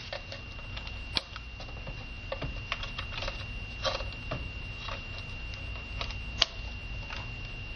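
Small plastic clicks and handling noises as cable connectors are plugged back into a POS terminal's receipt printer, with a few sharper snaps, the loudest about a second in and again near the end. A faint steady high tone runs underneath.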